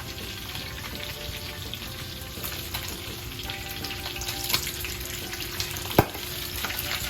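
Whole galunggong fish frying in hot oil in a pan: steady sizzling with frequent oil pops and crackles. A sharp knock comes about six seconds in.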